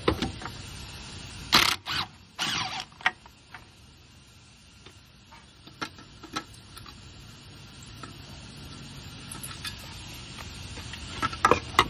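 Tools and sheet metal clattering while the 10 mm bolts of an exhaust manifold heat shield are taken out and the shield is worked loose. A few sharp clanks and a brief rattling burst come in the first few seconds, then scattered light clicks, and another cluster of clanks near the end.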